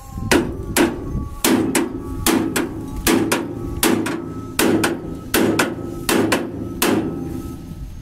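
Hammer blows on the steel cutter bar of a combine harvester header, seating newly fitted finger blades. About sixteen sharp metallic strikes, mostly in quick pairs, each ringing briefly.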